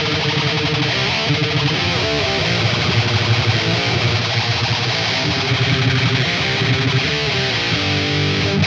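Distorted electric guitar playing a metal riff, from a Jackson Rhoads with a Seymour Duncan Dimebucker pickup run through the Black Sun amp-sim plugin. The cabinet tone changes as the Devil's Lab Hell impulse responses are switched one after another.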